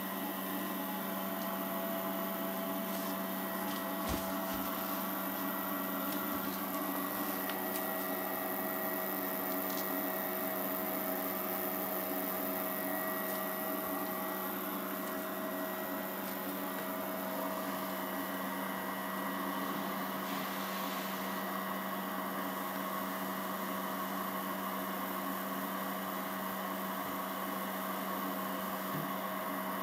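3D printer's geared extruder stepper motor running at a constant speed while the hotend is tested: a steady hum made of several steady tones, with a couple of faint ticks.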